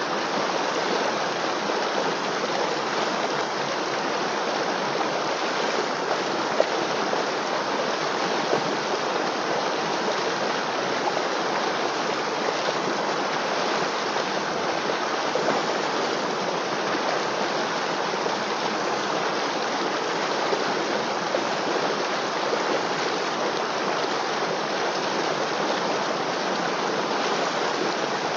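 River water flowing steadily: a constant, even rush of running water.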